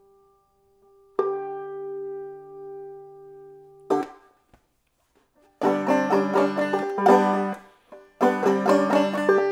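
A held keyboard chord rings steadily, changes to a new lower chord just over a second in, and cuts off with a click about four seconds in. After a short pause an open-back banjo starts up in quick clawhammer-style picking, with a brief break near the end.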